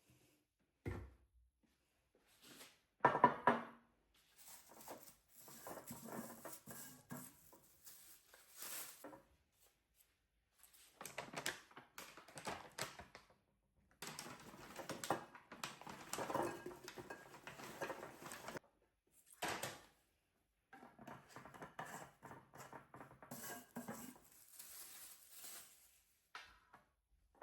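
Objects being handled and set down in a small room, with irregular clatter and knocks and one louder thunk about three seconds in.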